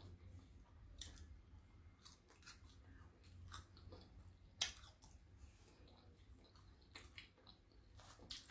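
Faint chewing of fried food, with scattered soft crunches and one sharper crunch a little past halfway.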